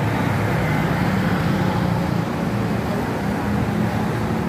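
Steady road traffic noise: a continuous low engine drone from cars and motorcycles on the street.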